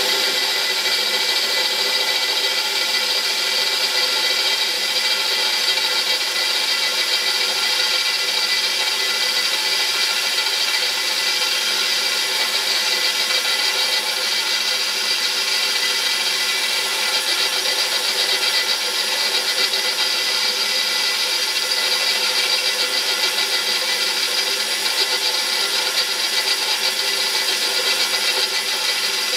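A DeWalt cordless drill runs steadily, its bit cutting a motor-mount bolt hole through the metal frame plate of a mini bike, which is wet with lubricant. It makes a continuous even whine with a grinding edge.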